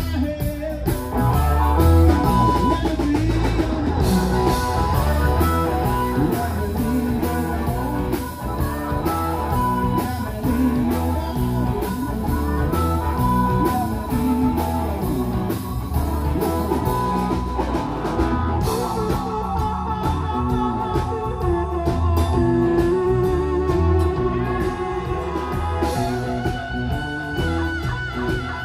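Live blues-rock band playing an instrumental passage, with a lead guitar over a steady drum and bass groove.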